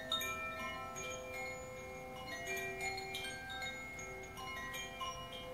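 A bamboo Koshi earth chime swayed by hand, its tuned metal rods struck at random by the clapper. Many soft, overlapping ringing notes at different pitches, each dying away slowly.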